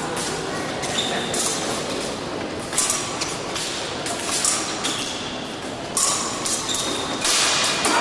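Épée fencing in a large echoing hall: quick footsteps and stamps on the piste and clicks of blade on blade, over a background of distant voices. The noise gets louder shortly before the end, as a touch is scored.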